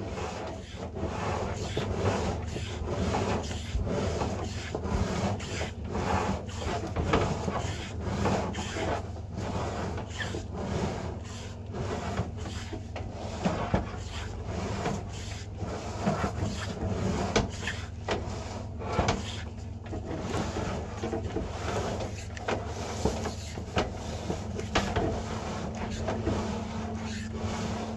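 Drain inspection camera's push rod being fed along a drain pipe, rubbing and knocking irregularly against the pipe, over a steady low hum.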